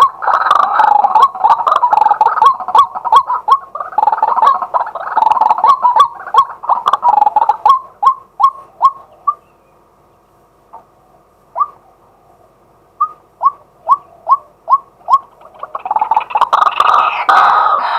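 Male white-breasted waterhen calling: a dense run of loud, fast, repeated calls that slows to separate clipped single notes about halfway through, breaks off briefly, then picks up again into fast calling near the end.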